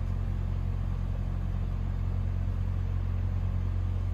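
Steady low hum of background machinery, holding one level without changing.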